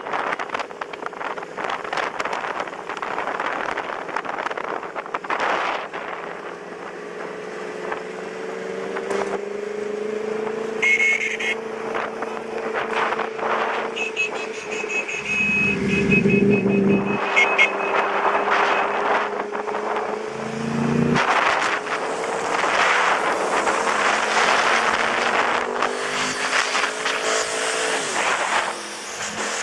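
Motorcycle engine running while riding, its pitch drifting up and down with speed, with heavy wind buffeting on the microphone. A louder swell of engine sound comes about halfway through.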